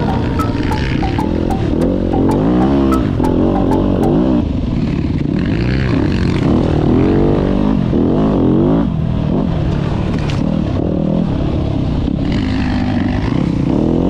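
Dirt bike engine running under way, its pitch rising and falling again and again as the rider works the throttle and gears over a bumpy dirt track. A few sharp knocks and rattles come in the first few seconds.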